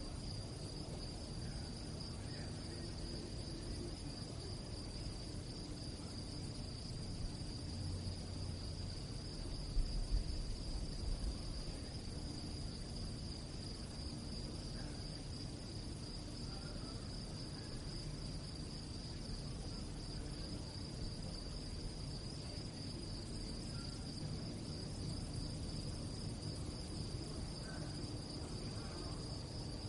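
Crickets chirping at night in a steady, continuous high-pitched chorus. A brief low rumble comes about ten seconds in.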